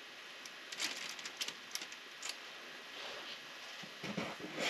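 A few faint clicks and scrapes from a metal squeeze-lever cookie scoop releasing dough onto a parchment-lined sheet, then a louder scrape and click near the end as it digs more dough from a plastic bowl.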